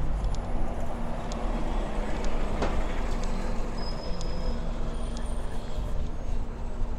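Red London double-decker bus passing close by and pulling away, its engine running with a steady hum; the passing noise swells to a peak about two and a half seconds in, over general street traffic.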